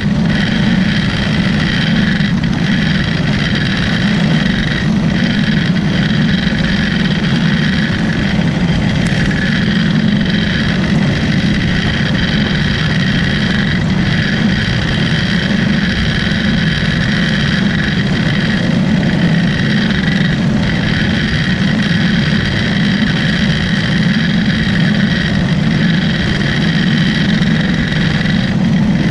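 Clone single-cylinder engine of a racing champ kart running hard at a steady high speed, heard from on board.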